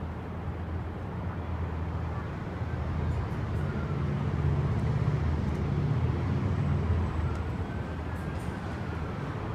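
Low traffic and vehicle rumble from the streets below, growing louder in the middle, with a faint emergency siren wailing slowly up and down in the second half.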